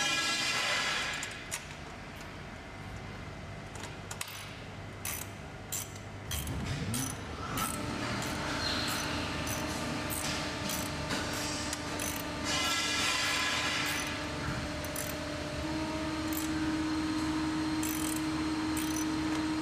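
Bolts being tightened by hand on a trolley's metal frame: scattered clicks and taps of the tool and metal, with two short bursts of rapid ratcheting, one at the start and one about twelve seconds in. A steady hum comes in about eight seconds in and grows louder near the end.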